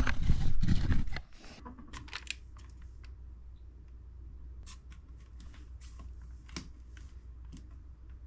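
A person stepping onto a bathroom scale: heavy low thumps for about the first second, then scattered small clicks and taps over a low steady hum while the scale takes its reading.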